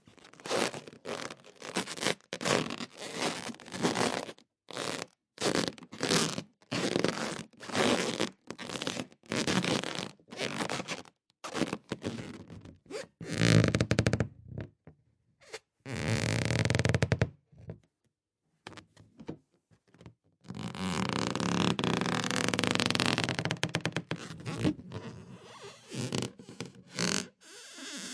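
Rubber balloons squeaking in a quick series of short squeaks, then a few longer squeals, a pause, and one long squeal of about four seconds, followed by more short squeaks.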